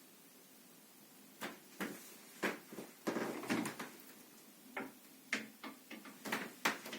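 Wardrobe door opening slightly and knocking against its frame: a run of irregular knocks and clicks that starts after about a second and a half of quiet, with a denser clatter near the middle.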